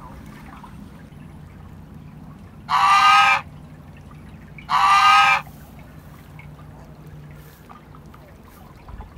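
Domestic geese honking: two loud, drawn-out honks about two seconds apart.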